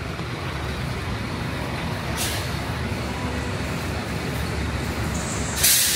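Large diesel bus engine idling with a steady low rumble, with two short hisses of compressed air from the bus's air system: a faint one about two seconds in and a louder one near the end.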